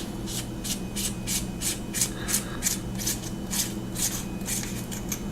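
Threaded body of a SUNWAYMAN G20C flashlight being unscrewed by hand, the threads scraping in short repeated strokes, about three a second.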